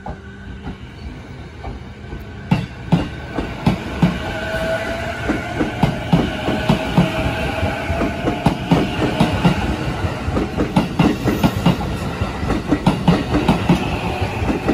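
E233 series electric commuter train pulling out and accelerating away. Its wheels clack over rail joints, the clacks coming quicker and louder as it gathers speed, over a faint rising whine from the traction motors.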